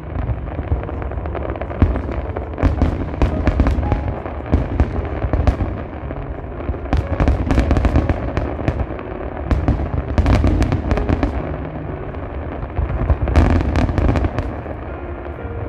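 Aerial fireworks shells bursting continuously: a steady low rumble of booms overlaid with many sharp bangs and crackling reports, coming in clusters several times.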